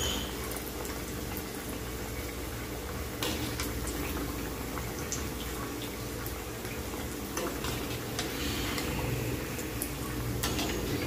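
Batter-coated potato vadas deep-frying in hot oil in a kadai: a steady bubbling sizzle with scattered crackles.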